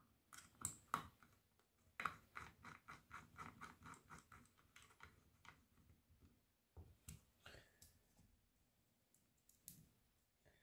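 Small screwdriver turning a screw into a tapped aluminium heatsink: faint, regular clicks at about four a second, with a few louder clicks and knocks near the start and about seven seconds in.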